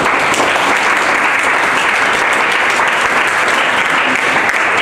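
Audience applauding, with steady, dense clapping throughout.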